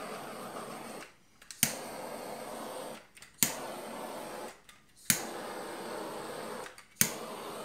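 Handheld blowtorch flame hissing steadily as it is played over freshly poured epoxy resin to pop the bubbles. It cuts out four times for about half a second, and each time it comes back on with a sharp click.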